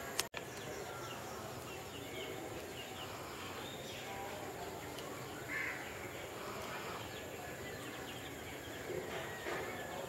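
Open-air background noise with a few faint, short bird calls, the clearest a little past the middle. A sharp click and a brief dropout at the very start.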